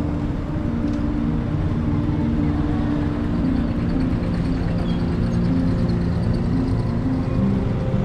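Steady vehicle and road-traffic noise heard while riding along a road among cars and motorbikes.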